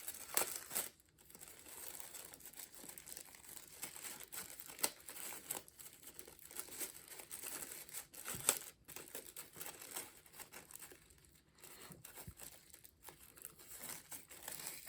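Packaging crinkling while small parts are handled and unwrapped, with many small sharp clicks and knocks, a little louder about eight seconds in.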